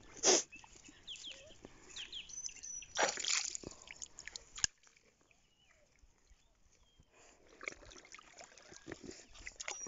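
Shallow water splashing and dripping as a wet gill net is lifted and picked through by hand. There is a sharp splash just after the start, another around three seconds in and a sharp knock at about four and a half seconds, then a quieter stretch with small scattered drips and rustles.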